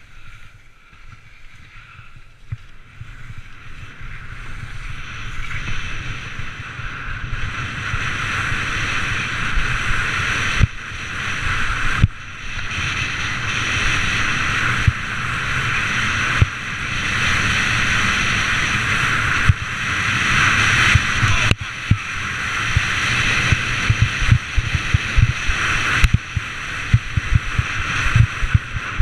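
Skis hissing and scraping over soft, chopped-up snow under a wind rumble on the body-mounted camera's microphone. It grows louder over the first several seconds as the skier picks up speed, then holds, with a few sharp knocks along the way.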